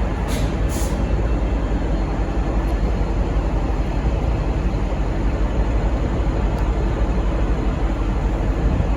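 V/Line N class diesel locomotive running steadily with a deep, even rumble, with two short hisses near the start.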